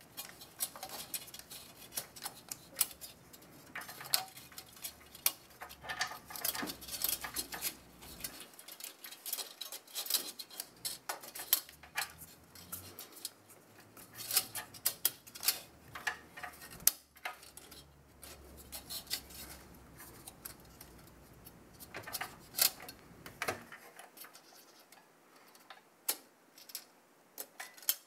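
Fan frame and wire fan clips clicking and scraping against the aluminium fin stack of a Noctua NH-D15S CPU cooler as the fan is clipped onto it: many small, irregular clicks and light metallic rattles.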